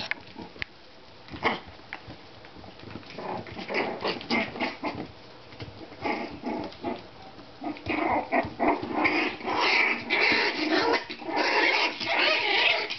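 33-day-old Shichon puppies play-fighting, with small growls and yips, sparse at first and much busier in the second half.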